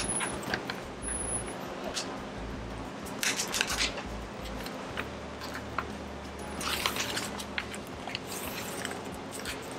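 Wrapping crinkling and tearing as a sealed dessert container is opened by hand. It comes as crackly rustles, busiest a few seconds in and again past halfway.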